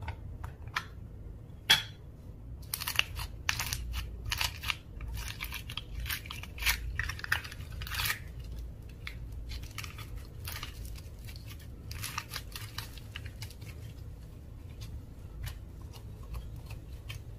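Slime being worked by hand, giving a run of short sticky crackles and pops, thickest in the first half and thinning out later.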